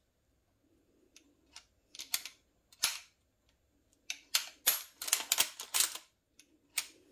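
Sharp metal clicks and clacks from handling the freshly reassembled Rossi 92 lever-action rifle: a few spaced clicks, then a quick run of them about four to six seconds in, and one more near the end.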